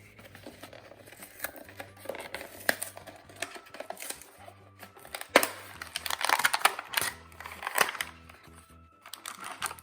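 Toy packaging being torn and crinkled open by hand, with irregular crackles and clicks that are loudest about five seconds in, over quiet background music.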